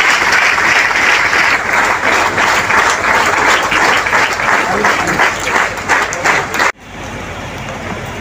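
Audience applauding, a dense patter that thins into more distinct claps, then cuts off suddenly about two-thirds of the way in; a quieter steady background noise follows.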